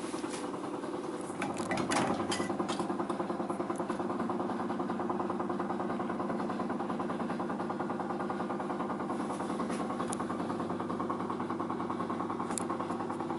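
A small electric motor running with a steady hum and a fast, even pulsing. A few clicks come in the first two seconds, then the motor sound grows louder and holds.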